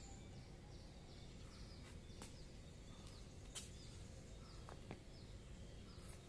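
Near silence: faint outdoor background noise, with a few faint high chirps and light clicks.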